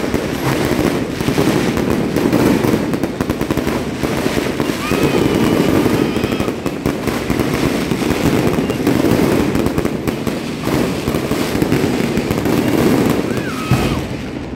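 Aerial fireworks bursting close by in rapid succession: a dense, continuous crackle of many reports with no pause.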